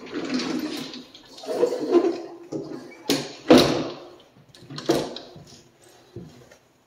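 A closet door pushed shut by hand, with rustling, scuffs and several sharp knocks, the loudest about three and a half seconds in, then a few steps on a hardwood floor.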